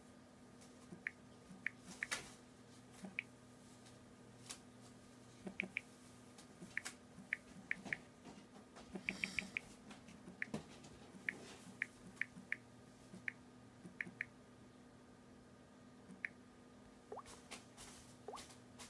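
Key-press ticks from a smartphone's on-screen keyboard as someone types, short and irregularly spaced, one or a few every second or two, over a faint steady hum.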